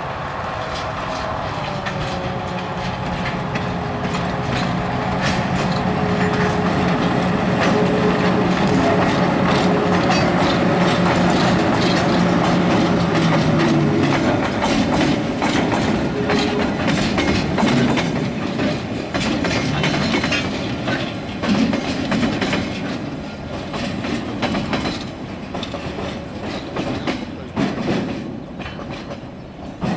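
DSC class diesel locomotive running past with a steady engine drone through the first half, then its train of container wagons rolling by with a fast clickety-clack over the rail joints, thinning out toward the end as the train moves away.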